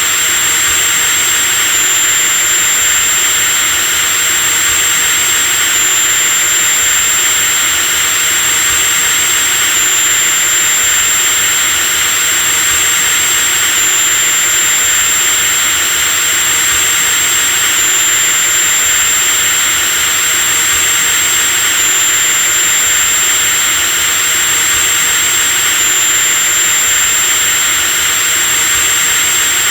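Electric drill running continuously at a steady speed, a loud high-pitched motor whine with a slight repeating step in pitch about every four seconds.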